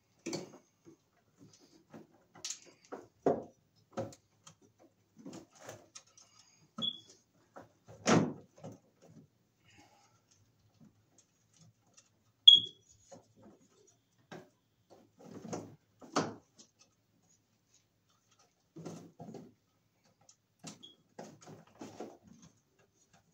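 Scattered clicks, taps and rustles of electrical cable being handled and fed into an open metal breaker panel, with a heavier knock about eight seconds in. Two short high chirps cut through, about seven and twelve seconds in, the second the loudest sound.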